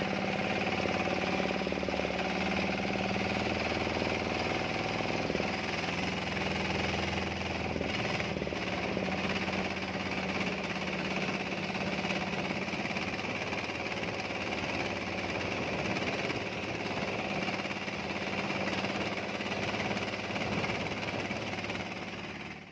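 Diesel engine of a wooden motor boat running steadily under way, with a steady hiss over it. The sound fades out near the end.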